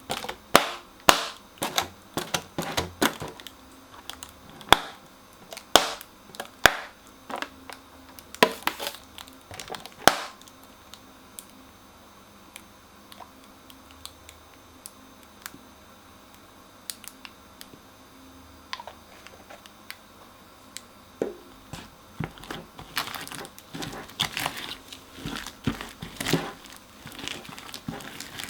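Crunchy slime being worked by hand, making sharp crackling and popping clicks. The clicks come thick and fast for about the first ten seconds, thin out to scattered pops through the middle, then come thick again near the end.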